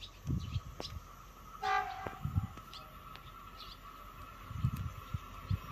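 A train horn gives a short blast a little under two seconds in, followed by a steady high tone that holds to the end.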